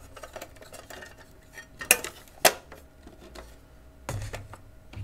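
Red aluminium enclosure of a PC Engines APU2 board being handled and turned over: small ticks and clinks, two sharp metallic clinks about half a second apart midway, and a duller knock near the end.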